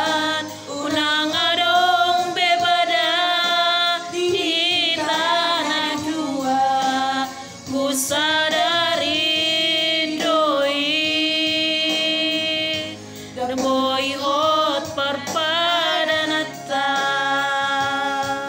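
A singer holding long notes with a wavering vibrato, phrase after phrase of a slow Batak Toba song, over a karaoke keyboard backing track. There are short breaks for breath between phrases.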